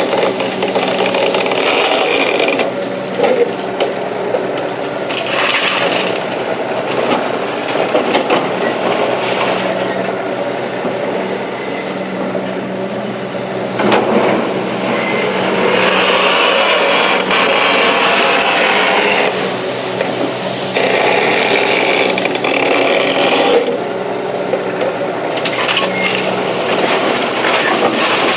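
Komatsu PC200 hydraulic excavator's diesel engine running under load, its sound swelling and easing every few seconds as it works through dig-and-load cycles.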